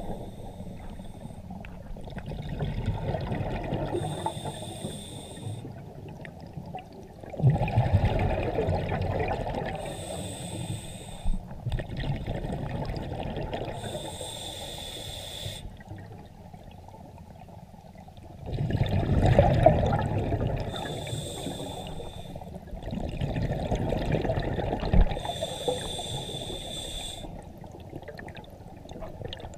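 Scuba diver breathing through a regulator underwater: a short hissing inhalation with a thin whistling tone every four to six seconds, alternating with longer bursts of exhaled bubbles.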